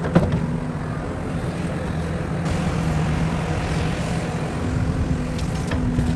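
Heavy construction machine engine running steadily, with a sharp clank just after the start and a few lighter knocks near the end.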